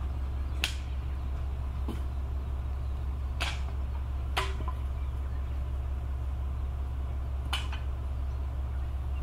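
Four short, sharp clicks, spaced a few seconds apart, over a steady low rumble.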